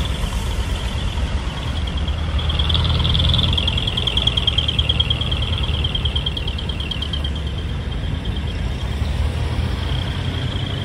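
Truck engines running low and steady as trucks pull slowly into the lot. Over them, a rapid high-pitched pulsing chirp starts about two seconds in and fades out by about seven seconds.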